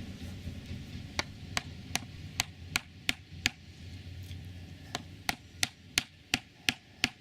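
Sharp, evenly spaced blows struck on wood, in two runs of about seven strikes each, roughly three a second, with a short pause between them.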